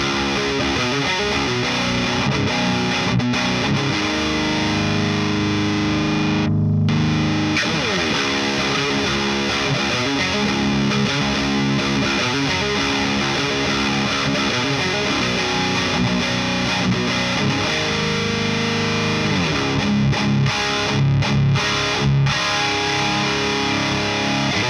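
Electric guitar played through an SD-1-style overdrive pedal into an overdriven tube amp: distorted riffs and chords with some notes left to ring.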